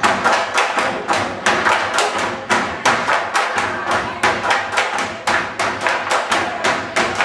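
Tinikling bamboo poles knocking together and against the wooden floor in a steady, quick rhythm, several sharp knocks a second.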